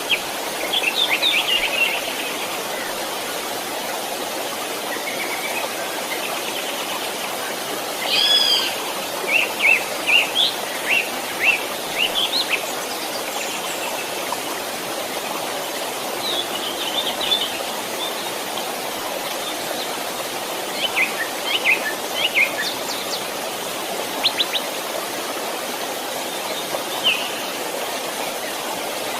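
A stream running steadily with a continuous rush of water. Songbirds chirp and trill over it in short bouts: about a second in, around eight to thirteen seconds in, and again from about sixteen to twenty-seven seconds in.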